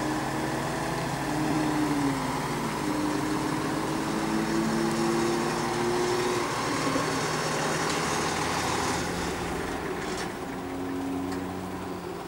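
A 2014 Rosenbauer fire engine's diesel engine idling steadily while parked, its hum shifting a little in pitch now and then.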